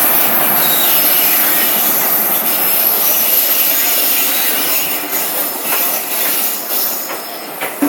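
An Indian Railways electric locomotive and the coaches of an express train running past on the rails: a loud steady rush of wheel-on-rail noise. It eases a little about five seconds in, with a few sharp clacks of wheels over rail joints.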